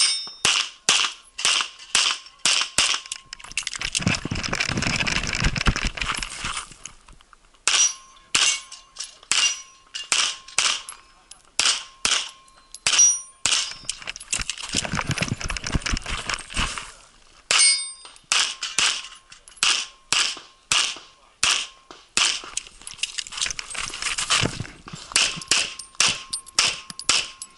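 Rapid pistol fire from a single-stack 1911-style pistol shooting an IPSC Classic stage, in quick pairs and strings of shots with short pauses between them. Two stretches of rushing noise come between strings, around four seconds in and again about fifteen seconds in.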